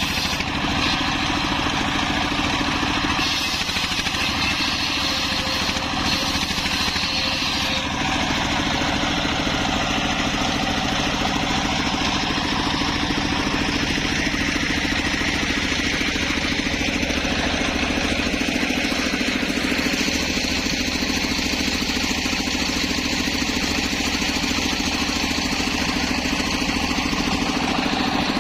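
Engine-driven homemade circular sawmill running steadily while sawing teak wood: a constant engine drone under a higher whine from the blade, which shifts in tone about 3 and 8 seconds in.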